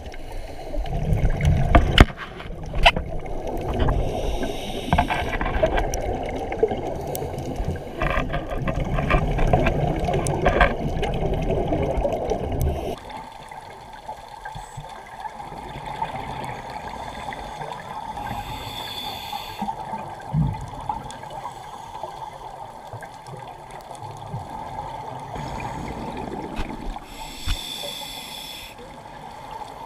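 Water sloshing and bubbling, loud with scattered clicks for about the first thirteen seconds, then quieter, with two short hisses later on.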